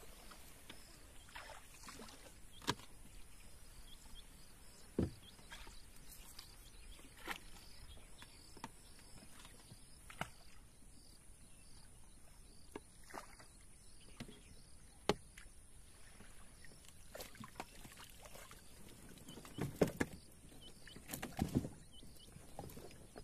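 Faint, irregular splashes and knocks in water, one every second or so, with a cluster of louder splashes near the end, over a steady high hiss.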